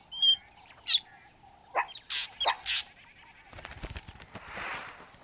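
Fork-tailed drongo giving a run of sharp alarm calls, a few short notes and then two quick falling sweeps about two seconds in. It is a false alarm meant to scare meerkats off their food. A noisy rustling follows over the last second and a half.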